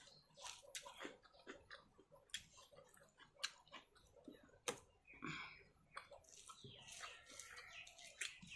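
Quiet eating sounds: chewing and wet mouth clicks and smacks while eating rice with curry, with two sharper louder clicks around the middle.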